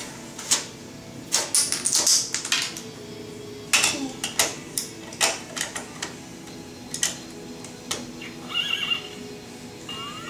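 Sharp plastic clicks from the buttons and little doors of an electronic toy barn being pressed, several in quick succession. Near the end the toy plays a short recorded horse whinny.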